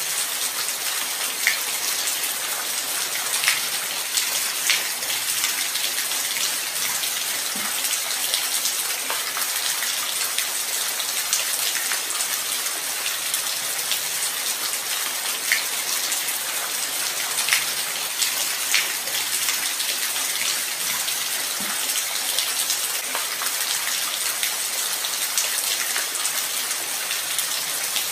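Light rain falling steadily, an even hiss with individual drops ticking and plinking here and there.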